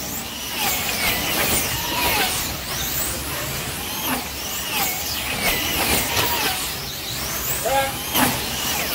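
Several wing slot cars racing, their small electric motors whining and sweeping up and down in pitch as the cars accelerate and brake around the track, many passes overlapping.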